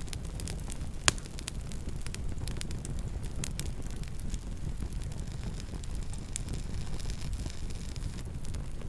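Campfire burning: a steady low rumble with frequent small crackles and snaps, and one loud pop about a second in.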